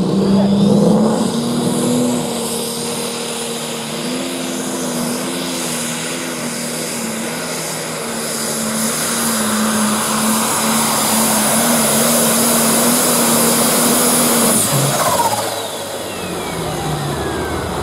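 A John Deere super stock pulling tractor's turbocharged engine running flat out through a pull, its note rising as it leaves the line and then holding, with a steady high whine over it. About fifteen seconds in the throttle comes off: the engine note drops and the whine winds down in pitch.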